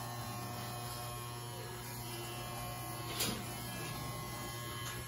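Corded electric hair clipper buzzing steadily as it is run up through short hair to even out uneven steps in the cut. A short burst of noise about three seconds in.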